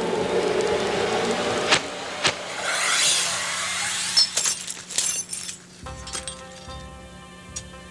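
Arrows loosed from a bow strike a suit of steel plate-and-mail armour: a couple of sharp clicks, a whoosh, then several quick metallic clinks as they glance off. A dramatic music cue plays under them, settling into soft held chords about six seconds in.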